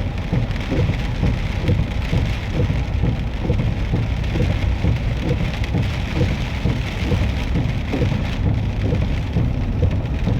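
Steady rushing noise of heavy rain and floodwater pouring over a submerged road, over a low rumble.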